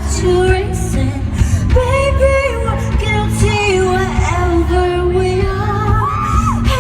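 Live pop music in a concert hall: female vocals over a heavy bass beat with crisp percussion.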